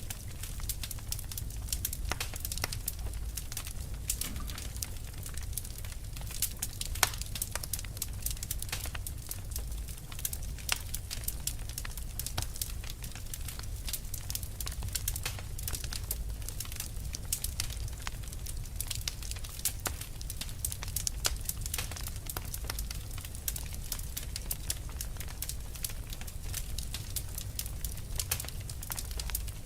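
Fire crackling: a dense, irregular run of sharp pops and snaps over a steady low rumble, with one louder pop about seven seconds in.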